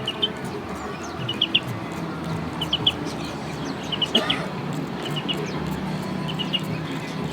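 Caged small bird chirping in quick clusters of three or four high notes, repeated about every second and a half, over a steady background hum.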